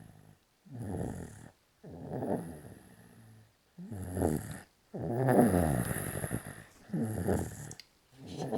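Baby snoring in his sleep: a pitched, rasping snore on nearly every breath, about six in quick succession, roughly a second apart.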